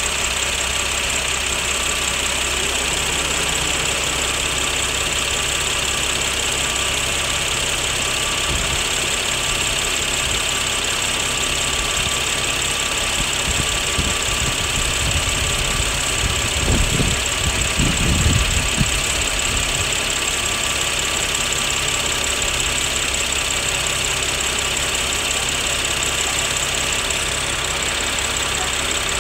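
2014 BMW X5's engine idling steadily under the open hood, with the AC compressor running, and a steady high hiss over it. A few low rumbles come about halfway through.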